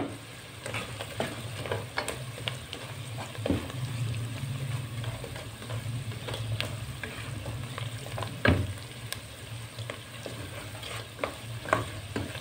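Fried chicken pieces, onion and green capsicum sizzling in a pot while a wooden spatula stirs them, with scattered small scrapes and knocks of the spatula against the pot.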